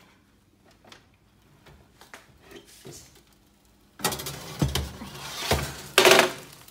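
Oven being opened and a foil-covered metal baking tray handled: faint clicks at first, then from about four seconds in loud metal scraping and clanking with two dull thumps, and a loud clatter near the end.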